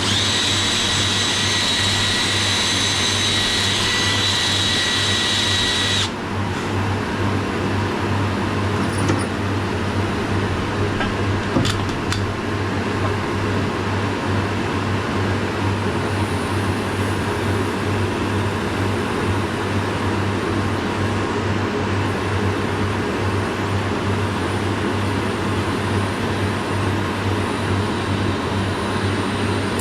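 An electric drill runs with a steady high whine and stops about six seconds in. A steady low machine hum carries on after it, with a couple of faint clicks.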